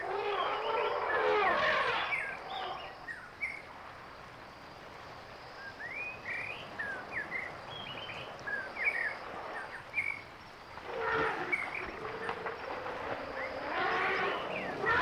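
Outdoor ambience with small birds chirping in short, quick rising calls through the middle, over a steady background hiss. Indistinct voice-like sound comes at the start and again near the end.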